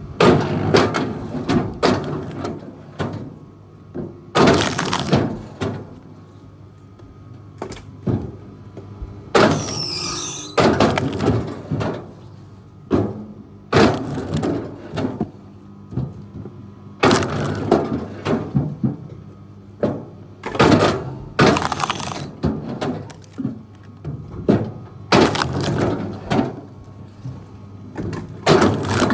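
Heavy machinery breaking wood: repeated loud cracking and splintering, a dozen or so surges, over the steady drone of the machine's engine.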